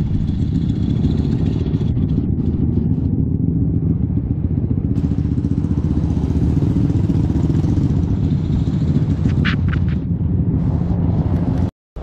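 Motorcycle riding along a road: steady, loud wind buffeting on the camera microphone over the engine's low running sound. A brief high-pitched tone sounds about three quarters of the way in, and the sound cuts off abruptly just before the end.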